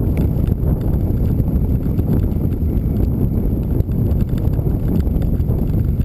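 Onboard ride noise from a vehicle travelling along a gravel road: wind on the microphone and tyres on loose gravel make a loud, dense low noise, broken by quick, irregular knocks and rattles.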